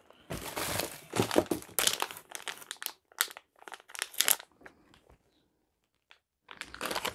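Plastic food packaging rustling as packets are handled and rummaged out of a cardboard box, in irregular bursts that fall quiet for a second or so before a last burst near the end.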